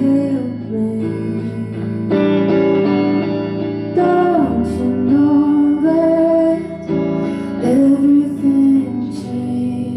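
Live solo performance: a woman singing with her own guitar accompaniment, the voice gliding between held notes over steadily plucked chords.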